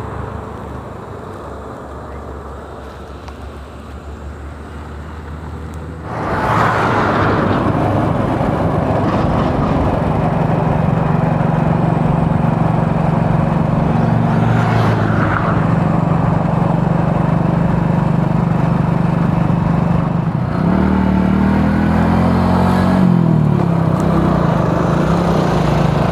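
A road vehicle's engine running while travelling along a road, with wind and road noise over it; it gets much louder about six seconds in and settles into a steady hum, whose pitch shifts about twenty-one seconds in.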